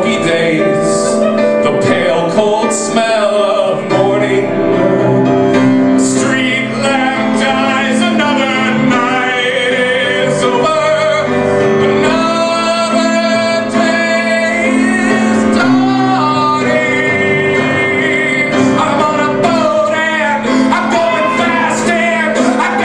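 A man singing with piano accompaniment, his voice wavering on long held notes.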